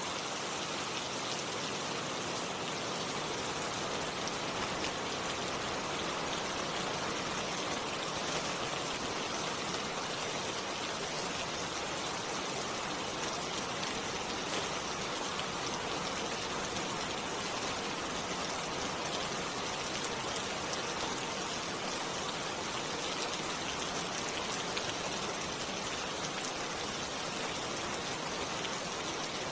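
Steady rain falling on leaves, an even hiss made up of countless small drop impacts.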